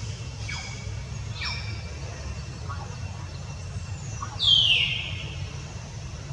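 Infant macaque squealing: a few thin high chirps falling in pitch, then a loud high squeal sliding downward about four and a half seconds in, over a steady low rumble.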